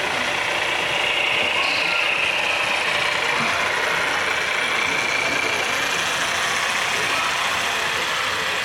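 Radio-controlled scale model Mercedes truck driving slowly, its drive motor and gearbox giving a steady mechanical whine.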